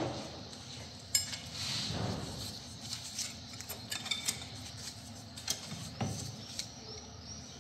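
Metal clinks and knocks of a tool and hands working the Fiat 500L's front brake caliper as it is levered loose and lifted off its carrier. A sharp clink with a brief metallic ring comes about a second in, and another ringing clink comes about four seconds in.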